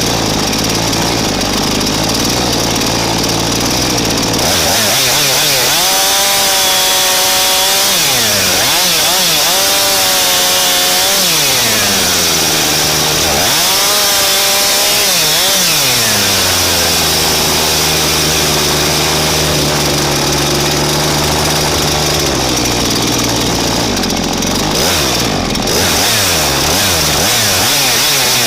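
Husqvarna two-stroke chainsaw heard from a camera mounted on the saw itself, so the engine is loud and close. It idles, then is revved up and cuts wood in several passes, the engine pitch sagging under load and recovering. It drops back to idle for several seconds, then revs up again near the end.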